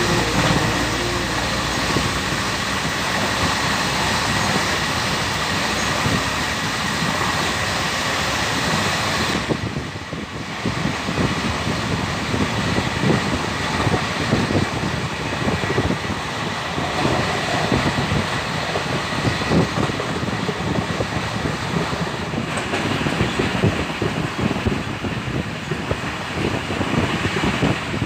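Passenger train running at speed, heard from inside a coach: a steady rushing rumble with rattling. About ten seconds in the sound briefly drops, then turns rougher, with dense clattering.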